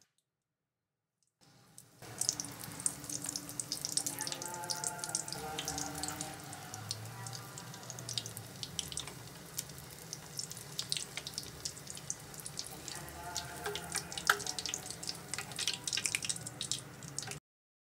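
Chicken lollipops deep-frying in hot oil in a kadai: steady sizzling dense with sharp crackles and pops. It starts about a second and a half in and cuts off suddenly near the end.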